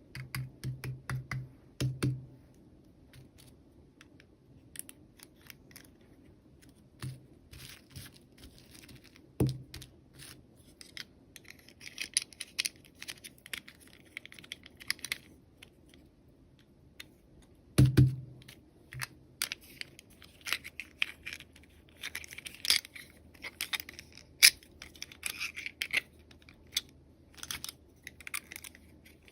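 Hands unboxing small toys: scattered clicks and taps of plastic pieces, a few dull knocks, and stretches of packaging rustling and tearing, about twelve seconds in and again from about twenty-two seconds on.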